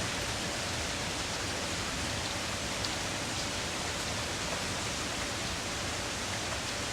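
Rain falling: a steady even hiss with a few faint drip ticks.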